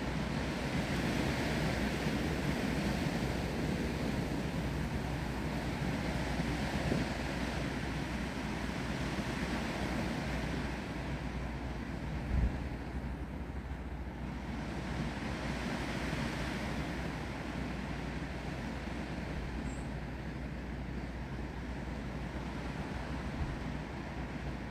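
Wind blowing through trees with rain, a steady rushing noise that swells and eases in gusts. A brief low bump about halfway through.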